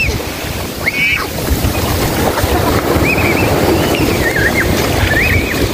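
Shallow surf washing and foaming over the sand, with wind buffeting the microphone. Four short, high-pitched squeals of children playing in the water cut through it.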